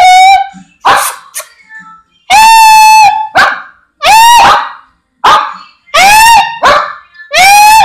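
Small long-haired dog barking repeatedly: long, high barks that rise at the start and then hold for over half a second, about every one and a half to two seconds, with shorter barks in between.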